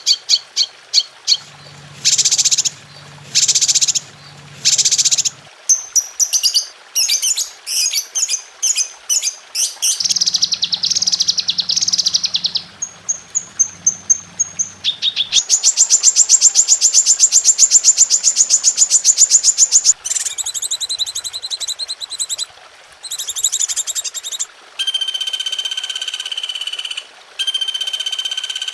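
A string of different songbirds' songs and calls spliced one after another, changing abruptly every few seconds: rapid chirps, fast trills, a loud buzzy trill, then long clear whistled notes near the end. This is a 'masteran', a bird-song compilation played to tutor caged songbirds.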